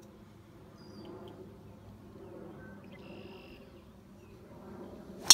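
Birds chirping in short high calls over a low outdoor background. At the very end comes one sharp, loud crack of a driver striking a golf ball off the tee.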